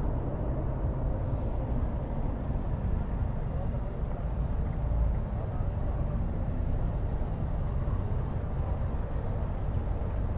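Steady low rumble of road and traffic noise from a vehicle driving through city streets.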